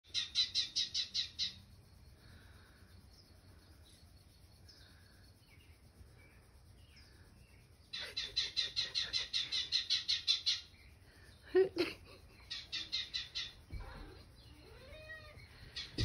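Recorded birdsong played on a television: rapid trains of high chirps in three bouts, the first at the start and a longer one about halfway. A short, louder sound comes just before the last bout.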